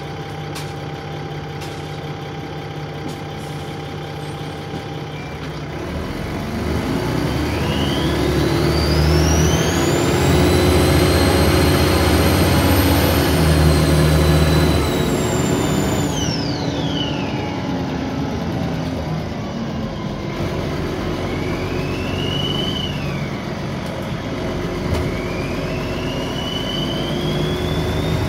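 Dennis Trident 2 double-decker bus engine idling, then pulling away with a loud turbo whine: a high whistle rises steeply about eight seconds in, holds while the bus accelerates, and falls away about ten seconds later. Near the end two shorter whines rise again as the bus picks up speed.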